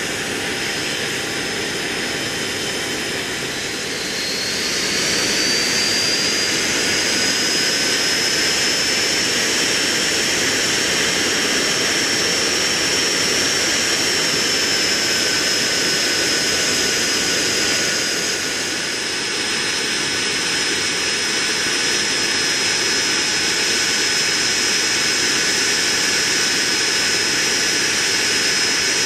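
Rolls-Royce Spey turbofan engines of a Hawker Siddeley Nimrod running on the ground: a steady jet rush with a high turbine whine. The whine and loudness rise as the engines spool up about four seconds in, then ease back a little around eighteen seconds.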